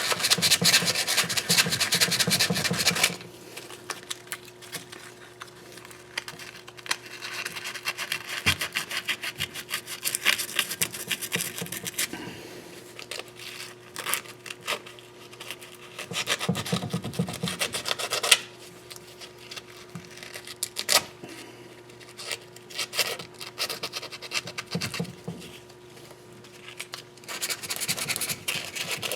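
Sandpaper rubbed back and forth by hand over a metal engine surface to clean it: quick, dense strokes for the first three seconds, then shorter bursts of rubbing separated by pauses. A faint steady hum runs underneath.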